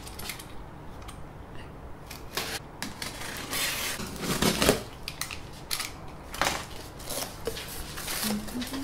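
Packing tape on a cardboard box being cut with a utility knife, then the cardboard flaps pulled open: a run of scrapes, taps and rustles, loudest about halfway through.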